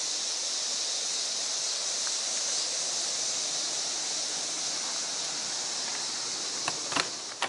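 Steady high-pitched hiss of a summer insect chorus in woodland, with two short clicks near the end.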